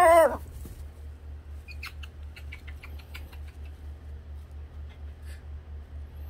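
Blue-and-gold macaw ending a short wavering call at the start, then a run of light clicks about two seconds in as it works its beak against the wooden furniture. A steady low pulsing hum runs underneath.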